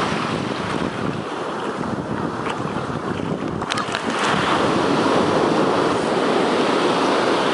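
Ocean surf washing up the beach, a steady rushing wash that grows louder about halfway through, with wind buffeting the microphone.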